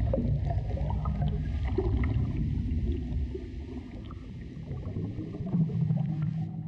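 Low, rumbling underwater water noise with gurgling, dipping a little in loudness midway.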